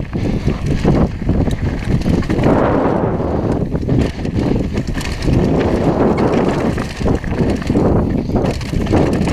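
Downhill mountain bike rolling fast over a loose gravel and dirt trail: the tyres crunch over stones, with a constant clatter of small knocks and rattles from the bike.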